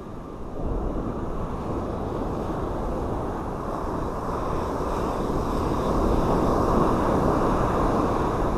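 Ocean surf breaking and washing up a sand beach, a steady rushing that swells louder about six seconds in, with wind rumbling on the microphone.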